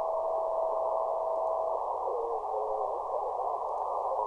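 Shortwave receiver audio of the 40-metre amateur band in CW mode from a WebSDR, band-pass filtered to a narrow band of static hiss. A steady single tone stops just under two seconds in, then short wavering and sliding tones follow as the receiver is tuned across signals.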